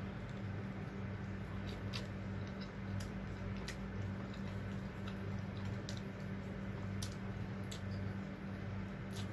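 Close-up eating sounds: scattered small clicks and soft wet squishes of a person chewing and handling food, over a steady low electrical hum.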